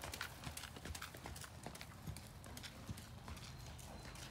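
Hoofbeats of a ridden horse trotting on the dirt footing of an indoor arena, a run of soft, irregular knocks.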